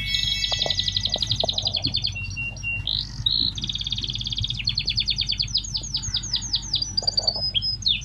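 A songbird singing close by: fast trills and rapid chirps, then a run of quick down-slurred notes at about four a second in the second half. A low steady hum runs underneath.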